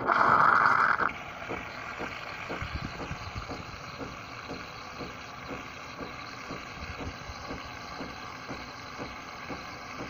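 Nespresso machine's built-in milk frother pumping frothed milk into a cup: a loud hiss for about the first second, then a steady hum and hiss with faint regular pulses about twice a second.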